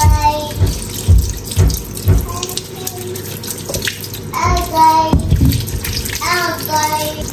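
Tap water running into a kitchen sink and over potatoes as they are rubbed clean by hand, with a voice heard at times.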